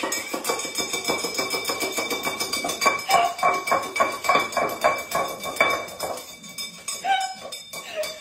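A dog making an impatient racket over its breakfast: a quick run of short sharp sounds, loudest from about three seconds in at roughly four a second, then fading and petering out.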